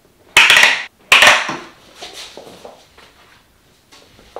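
Workshop handling noise as a plywood panel, hold-down clamps and an aluminium guide rail are shifted about on a perforated work table: two loud clattering knocks in the first second and a half, then lighter rattles and knocks, and a sharp click near the end.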